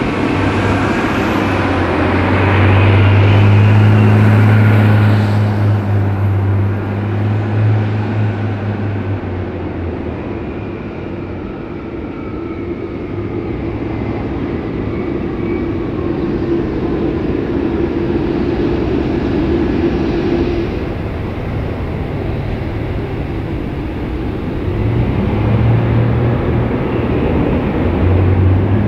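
Boeing 747-8F freighter's four GEnx turbofan engines running at taxi power as the jet rolls slowly past: a steady jet whine over a low rumble. The rumble grows louder around four seconds in and again near the end.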